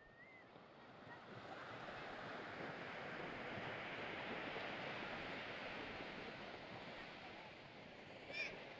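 Ocean surf: a wave washing in, swelling over the first few seconds and easing off near the end. A short high chirp sounds near the end.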